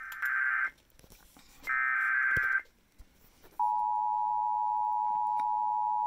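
Emergency Alert System SAME header: two short bursts of digital data tones about a second long, followed about three and a half seconds in by the steady single-pitch NWS attention tone, marking the start of a National Weather Service severe thunderstorm warning broadcast.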